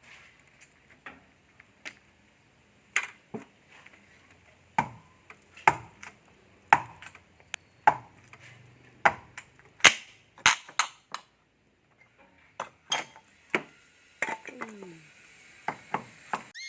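Sharp, irregular knocks and clacks of hand tools at work on an electrical breaker box, about one a second, some with a short ring.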